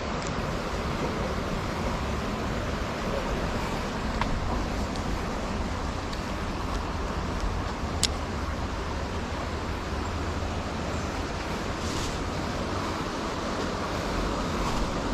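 Steady rush of a clear trout stream's flowing water, with a couple of faint ticks.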